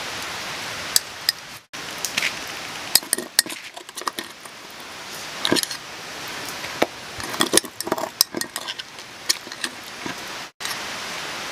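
A metal spoon scraping and clinking inside a small metal mug as cooked egg is scooped out, in irregular sharp clicks.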